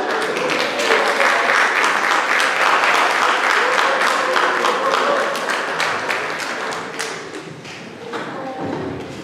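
Audience applauding, with some voices mixed in; the clapping thins out and fades over the last few seconds.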